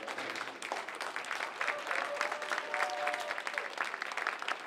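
Audience applauding: many hands clapping in a dense, irregular patter, with a short drawn-out call from a voice partway through.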